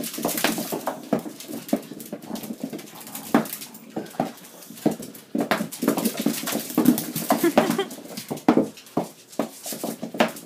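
Small dogs scrambling across a hard floor after bouncing balls: a busy run of clicks from claws and balls hitting the floor, with the dogs' own vocal sounds mixed in.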